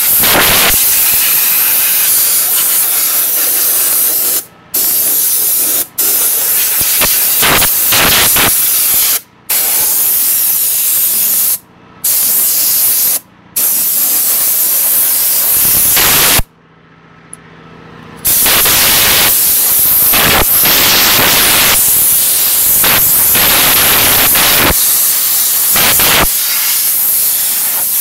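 A jet of compressed air hissing in long blasts into an open desktop computer case to blow out months of built-up dust. The jet cuts off briefly several times and once for nearly two seconds a little past the middle.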